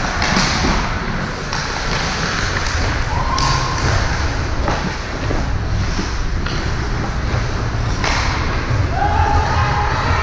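Sounds of a youth game in a large hall: repeated thuds and knocks from play, over a steady din, with a few short shouts.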